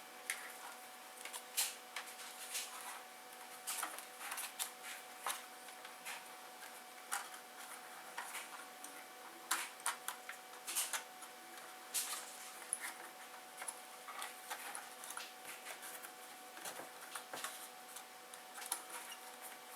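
Irregular light clicks and taps of small plastic instrument-cluster parts being handled and fitted by hand, over a faint steady hum.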